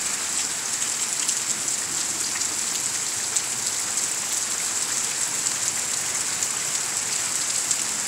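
Steady thunderstorm rain falling on wet ground, an even hiss scattered with the ticks of individual drops.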